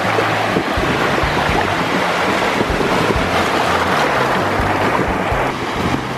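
Sea surf washing and foaming in the shallows, with wind rumbling on the microphone.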